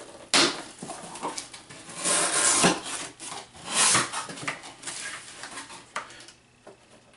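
A cardboard shipping box being opened by hand: a sharp snap just after the start, then the flaps scraping and rubbing, with two longer rasps about two and four seconds in.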